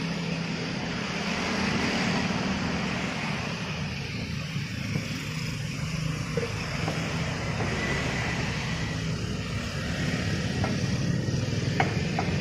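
Steady street traffic: motorcycles and cars running past, with a low engine hum throughout. A couple of light clicks come near the end.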